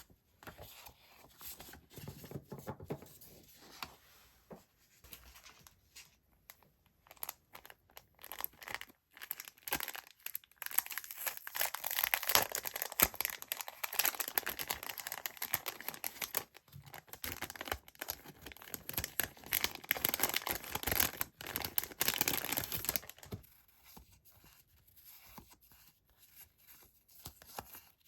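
Paper stationery being handled and rustled up close, with crinkling and tearing sounds. Sparse, soft rustles and taps give way about a third of the way in to a long, louder stretch of dense crinkling, which eases off again near the end.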